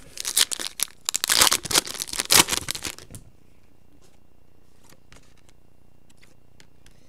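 Foil wrapper of a baseball card pack being torn open and crinkled for about three seconds. After that come a few faint clicks as the cards are handled.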